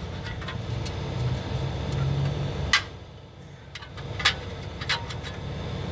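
A low mechanical running noise that cuts off a little under three seconds in with a sharp metallic clink, followed by a few more metal clinks, from work on torque converter bolts.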